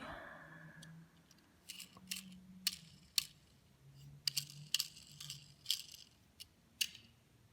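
Small metal toy cars and their packaging being handled: irregular clicks and light rattles, with a crinkling about four to six seconds in.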